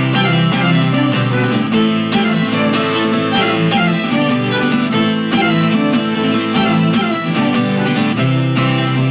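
Instrumental passage of an acoustic song: acoustic guitar strummed in a steady rhythm with a cello bowed beneath it, no voice.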